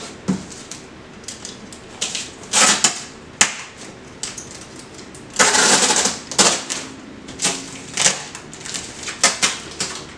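Packing tape pulled from a handheld tape gun dispenser and run across a cardboard box. Several short rasps of tape come off the roll, with a longer one about halfway through, among clicks and knocks of the dispenser against the box.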